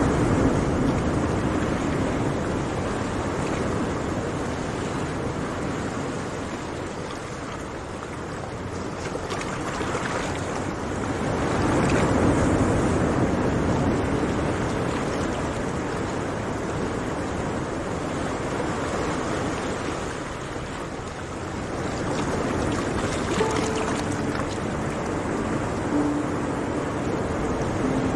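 Sea waves breaking and washing up on a sandy beach, the surf swelling louder about twelve seconds in and again near the end.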